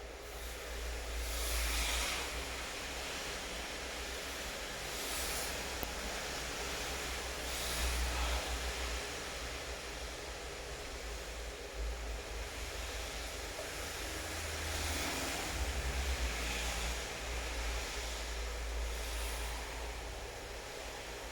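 Steady rain hiss, with several brief swells of louder hiss every few seconds over a low rumble.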